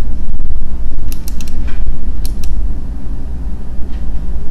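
A loud, rough low rumble with a creaking quality, overlaid by a few short sharp clicks: a quick cluster about a second in and two more a little after two seconds.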